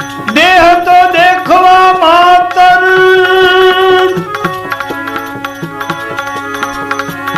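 Gujarati devotional bhajan: a singer holds and bends a long sung note for about four seconds over a steady melodic accompaniment and drum strokes, then the instruments carry on alone with the drum keeping a steady beat.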